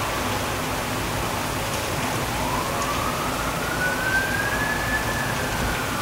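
Heavy rain pouring steadily, with an emergency-vehicle siren wailing through it: one slow rise in pitch from about two seconds in, peaking near five seconds and starting to fall at the end.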